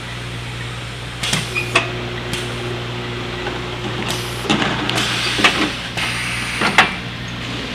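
Automatic overflow bottle-filling machine running: a steady hum with irregular sharp knocks and clatters of plastic jugs and machine parts, the loudest near the end, and a hiss a little past the middle.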